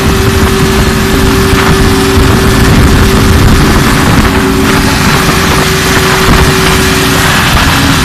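Concrete pump machinery running loudly and steadily while concrete is pumped through the delivery hose: a continuous mechanical drone with a constant hum.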